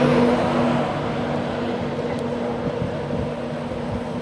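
Class 91 electric locomotive passing at speed at the tail of an InterCity 225 train. Its steady motor hum ends about a second in, leaving an even rush of wheel and air noise.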